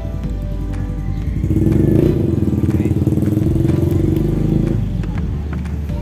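A motor vehicle engine passing by, rising about a second and a half in and fading away near the end, over background music.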